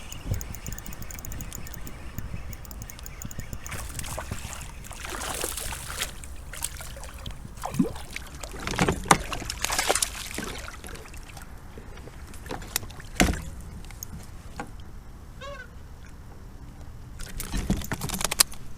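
Water splashing and sloshing around a fishing kayak, with several splashes and knocks over a steady low rumble. There is a short run of high chirps about three quarters of the way through.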